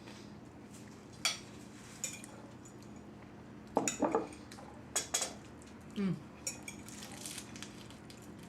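Eating sounds at a table: cutlery and dishes clinking in a scatter of short clicks and knocks, with a low steady hum underneath.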